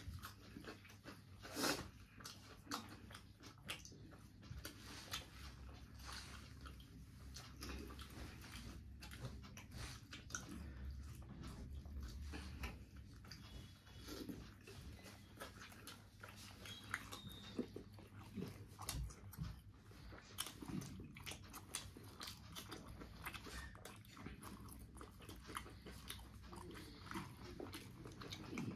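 A person chewing and smacking while eating a home-cooked curry meal, an irregular string of short mouth clicks and bites.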